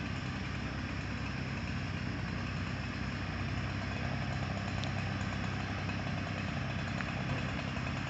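Bucket truck's engine idling steadily.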